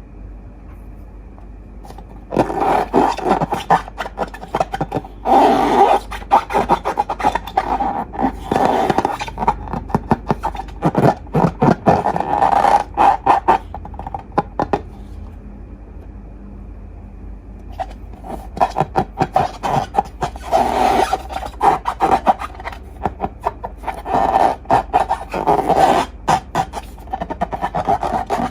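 Long balloons and slime being handled for ASMR: two long bouts of dense crackling, squeaky scraping, the first starting about two seconds in, with a pause of a few seconds in the middle.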